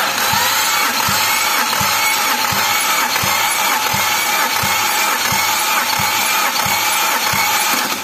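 Perodua Myvi engine cranked over by its starter motor during a compression test on cylinder 2. A steady starter whir carries a regular low thump about two to three times a second, and it stops just before the end. The gauge then reads 8, which the mechanic calls OK.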